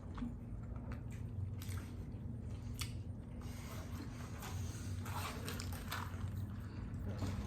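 People biting and chewing fast food, with scattered short crunches and clicks over a steady low hum.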